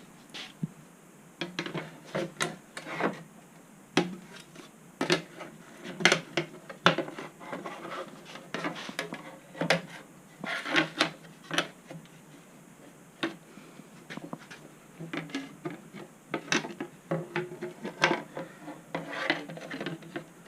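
Irregular clicks, knocks and scraping as a bumper and other plastic parts are slid and pressed into place by hand during reassembly.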